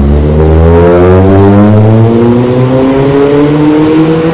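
Car engine accelerating in one long pull, its note rising steadily in pitch; loud.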